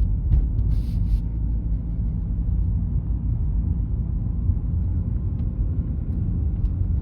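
Honda Accord Si-R wagon's engine running with a steady low rumble, heard from inside the car, with a brief faint hiss about a second in.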